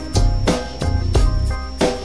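Music with a steady drum beat, about three hits a second, over held instrument notes.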